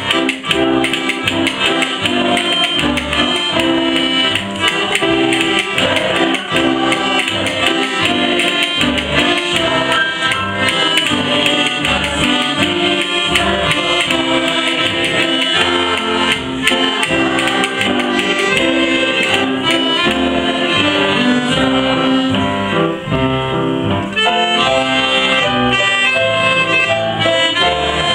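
Live folk music led by a piano accordion, with acoustic guitar and piano accompaniment and a steady low bass pulse.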